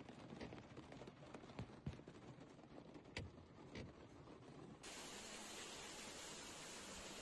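Faint scattered ticks and taps, then about five seconds in a steady hiss of heavy rain and rushing water cuts in abruptly.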